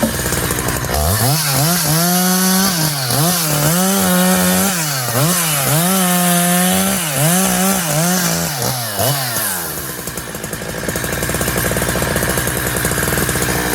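Big-bore Husqvarna 372XP two-stroke chainsaw revving high with a screaming note, its pitch dipping and recovering again and again as the square-filed full-chisel chain cuts through silver birch; the last few seconds run steadier.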